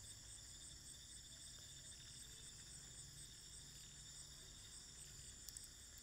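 Near silence, with faint, steady, high-pitched insect-like chirring that pulses quickly and evenly over a low hum.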